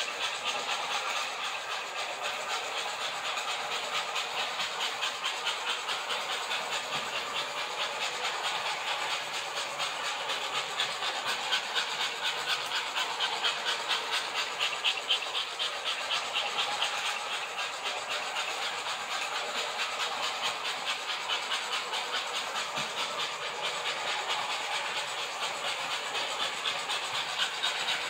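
American Flyer S-gauge toy electric trains running on sectional track: a steady whirring hiss from the locomotive motors and wheels, finely ticked with rapid clicks over the rail joints.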